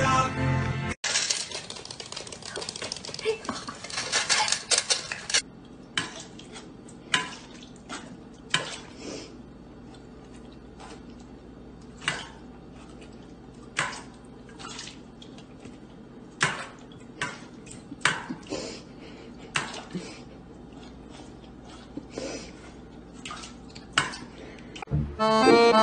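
A dog eating dry kibble from a stainless steel bowl, kibble and metal clinking: a dense rattle for the first few seconds, then separate sharp clinks about once a second.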